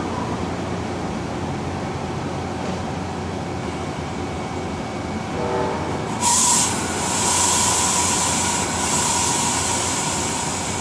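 VRE commuter train standing at the platform with a steady low rumble. About five seconds in there is a brief tone, then a sudden loud hiss that lasts about four seconds and fades.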